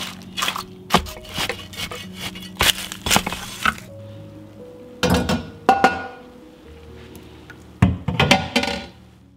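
Soft background music with sharp clinks and clatters of kitchenware, coming in clusters: a run of them in the first four seconds, a few more about five to six seconds in, and a quick flurry near the end.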